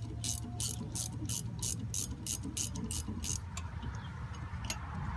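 Ratchet wrench clicking in quick, even strokes, about three a second, as a bolt on an air-conditioning compressor is turned; the strokes stop about three and a half seconds in, with one more click near the end. A steady low hum runs underneath.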